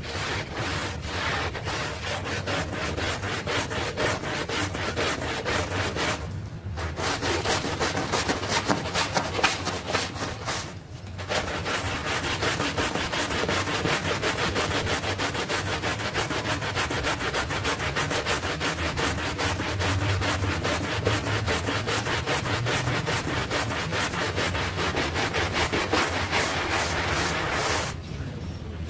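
Stiff-bristled hand brush scrubbing a wet, soapy rug in rapid back-and-forth strokes, the bristles rasping through the foamy pile. It pauses briefly twice and stops shortly before the end.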